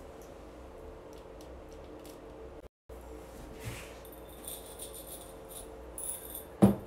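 Miniature rocks rattling in a small glass jar as it is picked up and handled over the resin pieces. Near the end comes one sharp knock, the loudest sound, as the glass jar is set down on the table.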